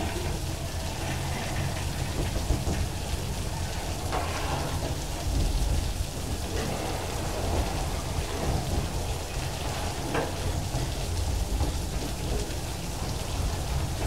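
Heavy rain pouring down on the platform and the passing train, over the low, steady rumble of a long loaded freight train of log wagons rolling by. A couple of brief sharp clanks or squeals stand out, about 4 and 10 seconds in.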